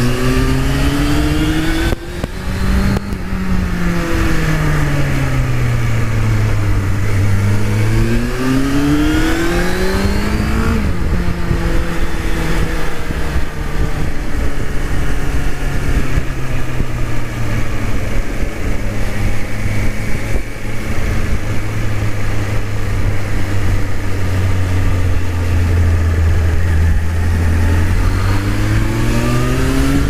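Suzuki Bandit 600's inline-four engine pulling and slowing on the road. It revs up, drops in pitch at a gear change about two seconds in, falls as the bike slows, climbs again, and shifts once more about eleven seconds in. It then runs at a fairly steady pitch for most of the rest and rises again near the end, with wind rush on the microphone.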